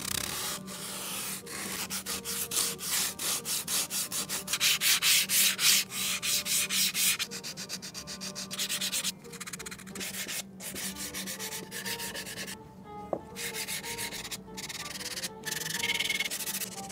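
Hand sanding of alder wood: sandpaper scratching in rapid back-and-forth strokes, about four a second. The strokes come in bouts with short pauses, and the strongest run is about five seconds in.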